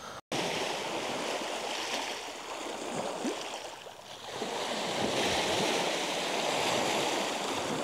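Small waves washing onto a lakeshore: a steady rushing of water that swells and eases, thinning out about halfway through before building again.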